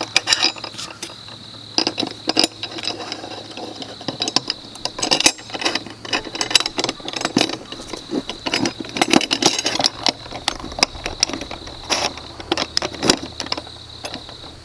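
Small metal hardware clinking and rattling by hand as nuts, washers and bolts are handled and fitted onto a chainsaw mill's metal frame: irregular clicks and light knocks throughout.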